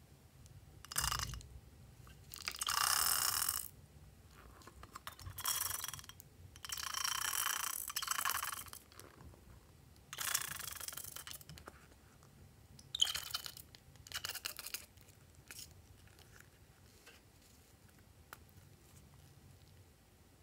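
Thick slime squelching as a hand squeezes it out through the neck of a rubber balloon, in about seven separate wet bursts, the longest near three and eight seconds in, fading off after about fifteen seconds.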